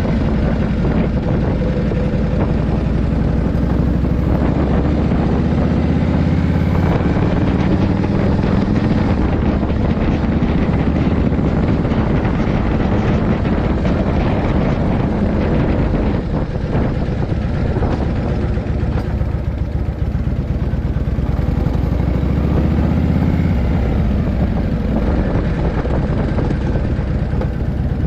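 Harley-Davidson Shovelhead V-twin with a freshly rebuilt top end running hard on the road, its pitch rising as it accelerates early on, easing about halfway through and climbing again later.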